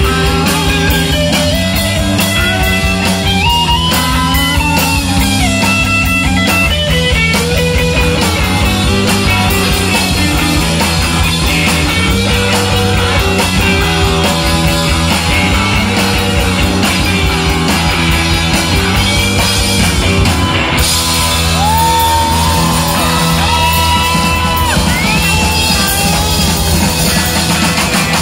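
Live rock band playing loudly: electric guitars, bass guitar and drums over a steady low riff, with high sliding notes in the first several seconds and again from about 21 seconds in.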